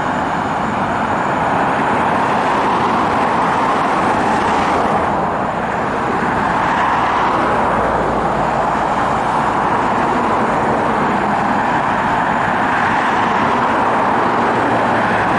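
Steady road-vehicle noise, an even rush of tyres and engines with no siren.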